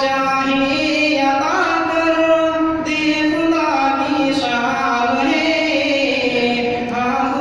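A young man's voice chanting a melodic recitation into a microphone: long held notes that slide from pitch to pitch, with short breaths about three seconds in and near the end.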